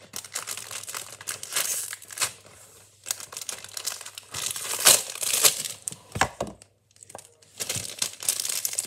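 Pocky packaging being opened: the cardboard box and its crinkly foil inner wrapper crinkling and tearing in irregular bursts, with a short lull about two-thirds through.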